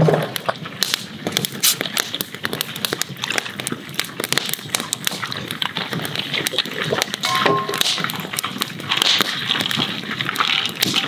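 Wood campfire crackling, with dense, irregular snaps and pops.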